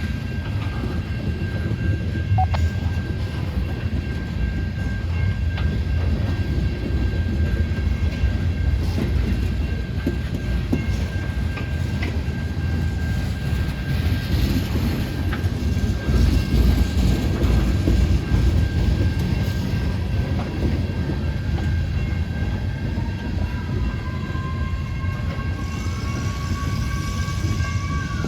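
Freight train of ethanol tank cars rolling past, a steady low rumble with wheel clatter. In the last several seconds a siren starts up, rising and wavering in pitch over the train.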